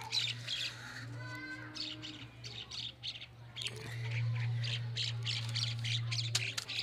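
Birds squawking and chirping, with newspaper sheets rustling as they are folded into a large paper airplane and a steady low hum.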